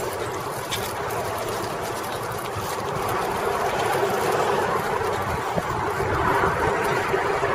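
Steady rush of wind and tyre noise from a cruiser bicycle being ridden, picked up by a camera mounted on the bike; it grows louder about three seconds in.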